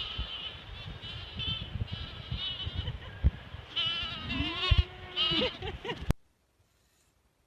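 An animal's repeated high, wavering calls, bleat-like, with a lower drawn-out call near the end and a few soft thumps. The sound cuts off abruptly about six seconds in.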